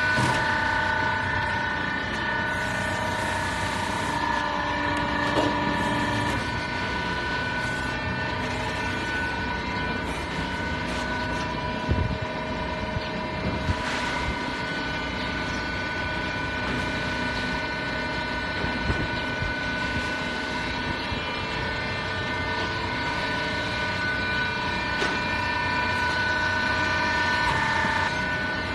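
Sawdust pallet block extruder running: a steady machine drone with a constant motor whine and a few sharp knocks.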